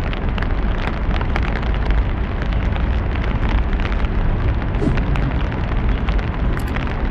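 Steady heavy rain falling in a city: a dense even hiss peppered with many sharp drop ticks over a deep low rumble.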